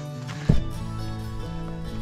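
Background music with held notes, and a loud low boom about half a second in.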